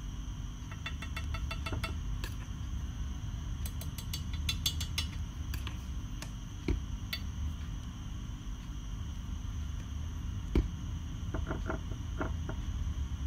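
A metal spoon clinking and scraping against a jar of grated parmesan and a ceramic baking dish: a run of light clicks, some ringing briefly, one sharper knock about ten and a half seconds in, then a few ringing taps near the end. A steady low hum runs underneath.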